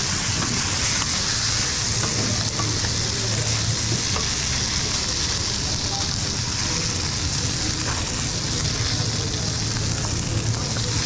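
Fried rice with vegetables sizzling steadily on a hot steel flat-top griddle while being stirred and scraped with metal spatulas, with a low steady hum underneath.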